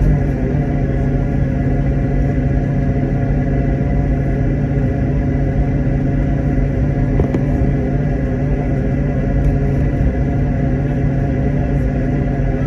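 Aircraft engine noise heard inside the passenger cabin in flight: a steady, loud rumble with a few held tones over it.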